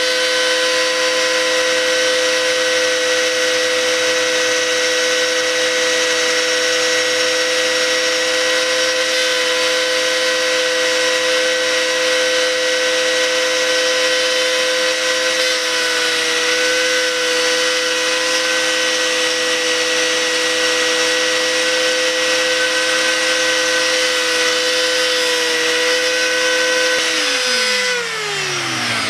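High-speed rotary tool with a small grinding bit running at a steady high whine as it routes out gelcoat cracks in a fiberglass boat deck. The pitch dips slightly now and then as the bit bites, and near the end the tool is switched off and winds down in a falling whine.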